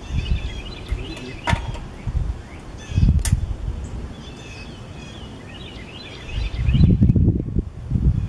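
Gusty wind buffeting the microphone, strongest near the end, with birds chirping repeatedly in the background and two sharp clicks in the first half.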